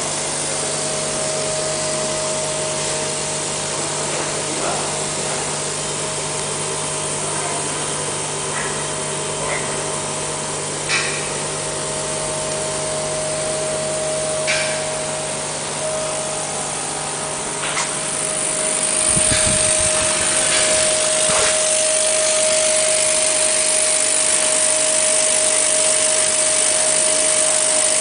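CO2 laser cutting machine running while it cuts clear acrylic sheet: a steady machine hum with a constant whine, a few sharp clicks, and a louder hiss from about two-thirds of the way through.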